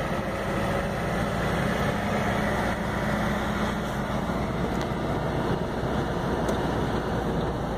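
Steady engine and road noise of a vehicle driving along a highway, heard from inside the cab, with a low engine hum that fades about halfway through.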